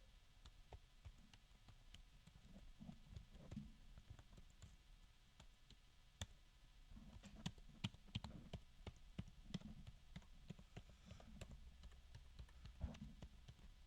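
Typing on a Nulea RT08 (TK52A) wireless ergonomic wave keyboard: faint, irregular key clicks, a few keys louder than the rest, the sound varying from key to key. A few keys are a little clinky when released fast.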